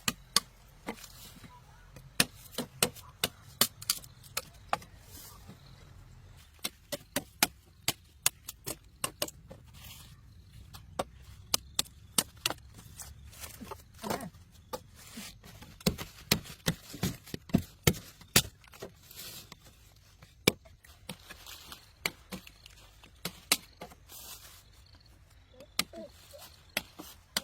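Repeated sharp chopping strikes of a blade cutting through sugarcane stalks, irregular, about one or two blows a second with short pauses.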